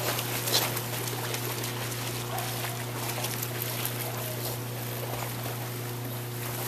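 Dogs swimming in an above-ground pool, the water splashing and sloshing as they paddle, with a brief louder splash about half a second in, over a steady low hum.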